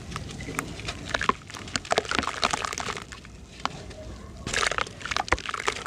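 Crumbly sand-cement chunks being crushed, crunching and crackling in quick snaps. There is a dense flurry about a second in and another near the end.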